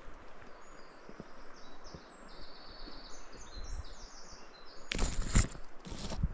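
A small songbird singing a quick run of short, high notes for the first four seconds or so, over faint footsteps on the forest floor. About five seconds in come two loud rustles, the second a second later, as branches are brushed.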